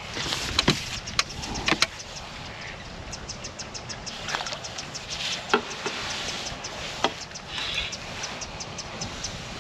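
Fixed-spool fishing reel being wound in while a fish is played on a feeder rod, a fast even run of light ticks from the turning reel, with a few sharper clicks along the way.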